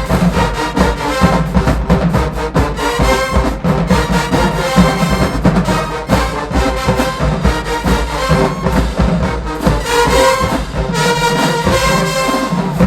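Full marching band playing loudly: a brass section of trombones and trumpets over a driving drum beat. The sound drops away sharply at the very end.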